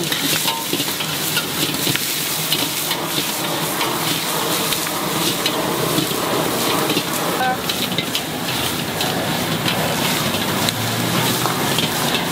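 Whole shrimp sizzling and crackling as they are stir-fried in a hot wok over a gas burner's flame. The frying runs at a steady level, dense with small crackles.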